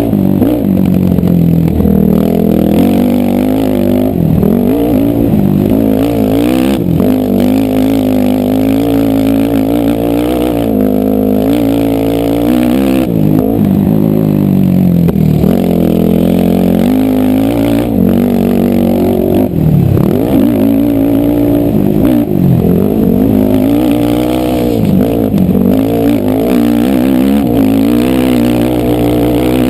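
ATV engine running hard, its pitch rising and falling again and again as the throttle is opened and eased off.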